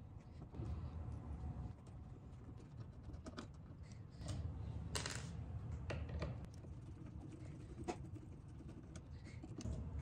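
Screwdriver turning out the screws of a wall outlet and its cover plate: faint, scattered small clicks and clinks of metal tool on screw and plastic. The sharpest click comes about five seconds in.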